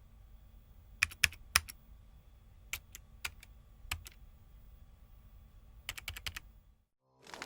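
Slow, sparse typing on a keyboard: single keystrokes and small quick clusters separated by pauses of about a second, over a faint steady hum. The typing stops about seven seconds in, and music starts just at the end.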